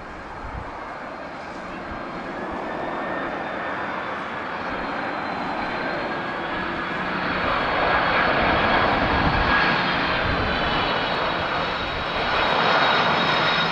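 Boeing 767-300 airliner on final approach, its twin turbofan engines growing louder as it nears: a rushing jet roar with a steady high whine over it, loudest a little past the middle and again near the end. Gusty wind buffets the microphone underneath.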